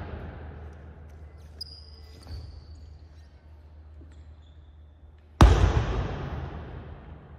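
A Chen-style tai chi foot stamp lands on a hardwood gym floor as a single heavy thud about five seconds in, and it echoes through the hall for about two seconds. The echo of an earlier stamp is still fading at the start, and a few faint shoe squeaks come in between.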